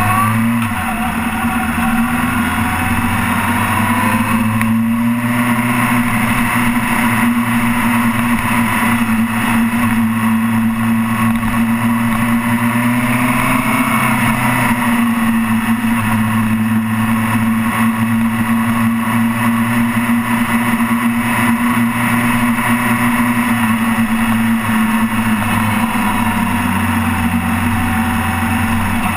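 Suzuki sport motorcycle engine running in second gear at fairly steady revs, its pitch rising briefly near the start, with steady wind rush over the microphone.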